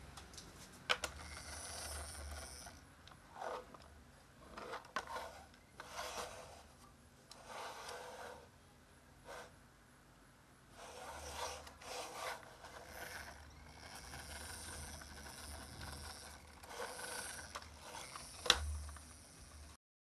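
Plastic toy car handled and pushed on a wooden tabletop: uneven rubbing and scraping of the toy against the wood, with a few sharp clicks, the loudest near the end.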